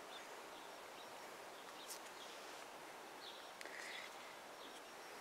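Quiet outdoor background with a few faint, scattered bird chirps and one light click about two seconds in.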